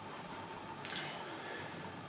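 Quiet room tone: a faint steady hiss with one short click about a second in.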